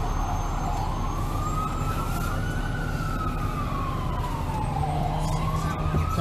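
Emergency-vehicle siren in a slow wail, rising and falling once over about four seconds and climbing again near the end, over steady city traffic noise.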